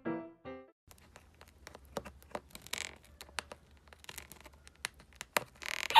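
A piano tune breaks off, then after a short gap come faint scattered clicks and a few soft rustles in a quiet room.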